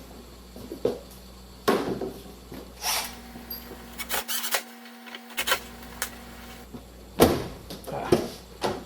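Irregular sharp clicks and knocks from hands working on a car door and its fittings, about eight over several seconds.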